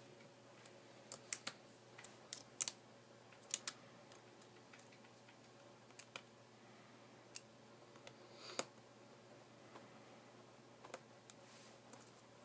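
Scattered sharp clicks and light taps of small repair tools against an iPhone 4's internal parts during disassembly, a few in quick pairs, the loudest about eight and a half seconds in.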